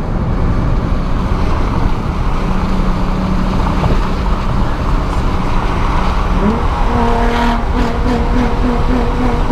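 Inside a moving Nissan 350Z: steady engine and road noise from its 3.5-litre V6. About two thirds of the way in, a pitched tone comes in and pulses a few times a second.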